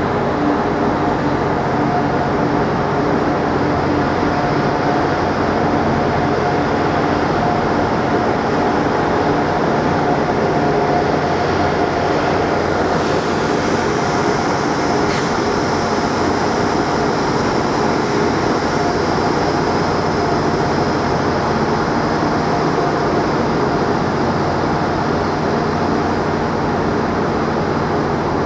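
A train standing or moving slowly at a station platform, running with a steady drone and a constant hum of several tones. There is a single faint click about halfway through.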